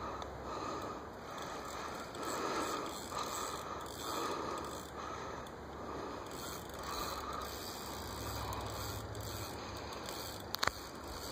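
Spinning reel being cranked against a hooked sturgeon, its gears and line running in a rhythmic gritty whir that swells with each turn of the handle. A single sharp click comes near the end.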